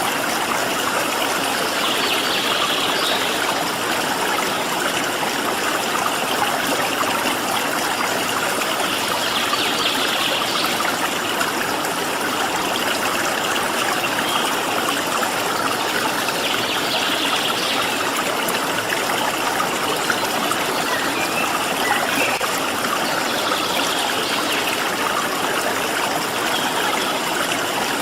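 Steady rush of a flowing stream, with faint high bird calls rising above it a few times.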